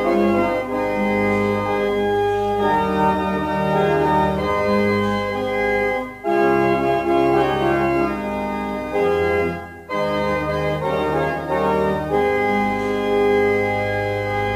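Organ music in slow, held chords, with two brief breaks between phrases about six and ten seconds in.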